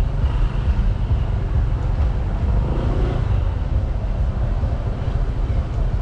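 Steady low rumble of a moving vehicle driving through city traffic, with road and wind noise on the microphone.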